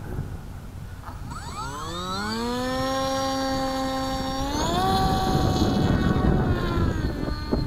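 Finwing Penguin RC plane's 1280KV electric motor and 9x6 propeller spooling up for a takeoff from the ground: a whine rising in pitch about a second and a half in, holding steady, then stepping higher about four and a half seconds in as the throttle goes up, easing slightly near the end.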